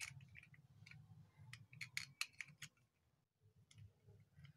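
Faint, scattered plastic clicks and taps as i7s true wireless earbuds are handled and set into their plastic charging case, over a low steady hum.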